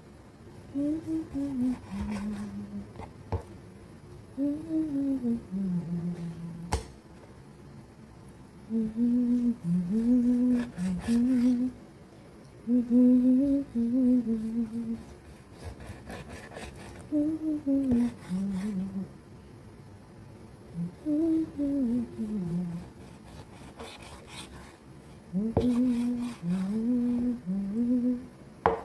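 A person humming a tune in short phrases, with occasional knocks of a chef's knife on a wooden chopping board as raw pork is cut.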